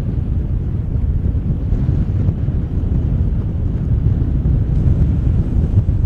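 Wind buffeting the microphone: a steady, loud low rumble with no bird calls standing out.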